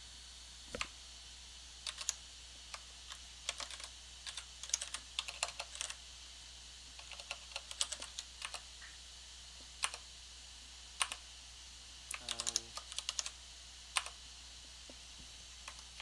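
Typing on a computer keyboard in irregular bursts: single key clicks and quick runs of keystrokes with pauses between. A brief low voiced murmur comes about twelve seconds in.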